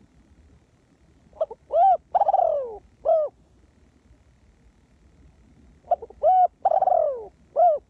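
Spotted dove cooing: two phrases of its four-note song, each a short coo, a rising coo, a long falling coo and a short closing coo, about four seconds apart.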